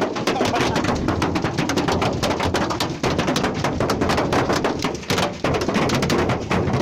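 Large hailstones pelting down: a dense, rapid, irregular clatter of hard impacts.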